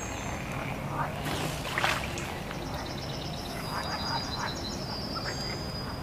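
Outdoor wildlife ambience of small animal calls: scattered short chirps, then a high, rapidly pulsed trill from about halfway through, over a steady low background hum.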